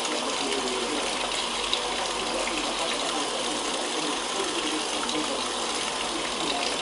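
Brastemp BWL07A washing machine filling, with water gushing steadily into the tub.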